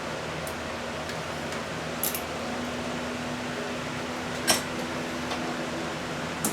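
Steady background hiss and hum with a few sharp clicks of hand tools on metal engine parts; the loudest click comes about four and a half seconds in.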